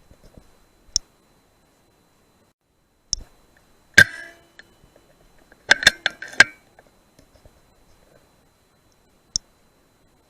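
Sharp clicks and knocks in a quiet room, typical of an air rifle being fired and cycled during rat shooting. About four seconds in one knock has a brief metallic ring, and around six seconds comes a quick run of four or five clicks.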